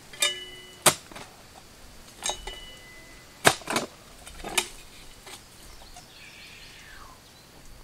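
Steel blades of a post-hole digger jabbed repeatedly into a post hole, striking solid rock with about seven sharp clanks, some ringing briefly. The hole has bottomed out on solid rock.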